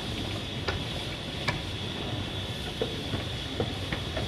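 Narrow-gauge passenger coaches rolling slowly along the track: a steady low rumble with a few irregular sharp clicks from the wheels on the rails, and a steady thin high tone over it.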